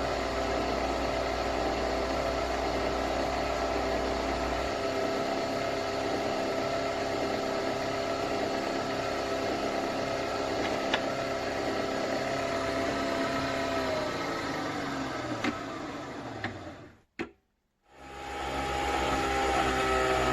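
Nespresso Vertuo Next coffee machine running through a brew with a steady motorised hum. Near the end its pitch winds down, with a couple of clicks, and after a brief gap of silence a running sound starts up again.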